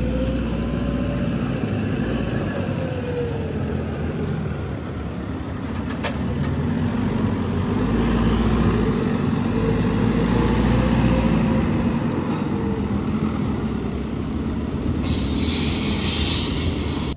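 An engine running steadily, its pitch slowly rising and falling, with a burst of hiss in the last two seconds.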